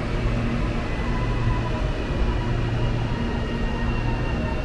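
Electric commuter train at a station platform: a steady low hum with a few faint, steady whining tones above it.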